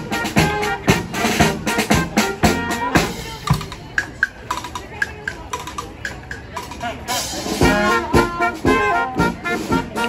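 Live brass band playing a tune, with trumpets, tuba and a bass drum. Steady drum beats carry the first few seconds, and the horns come in loud with a full phrase near the end.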